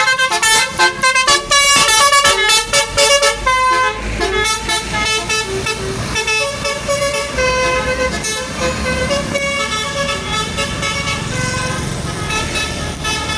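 Bus's Basuri "telolet" musical horn playing a tune: quick, choppy toots for about four seconds, then longer held notes stepping from pitch to pitch.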